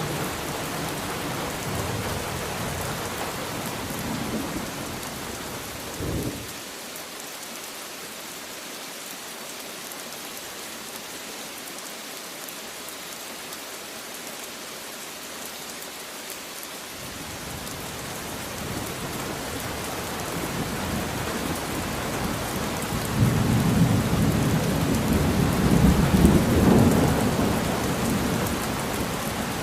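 Steady rain hissing, with rolling thunder underneath. The low rumble falls away for about ten seconds early on, then builds again and is loudest a little before the end.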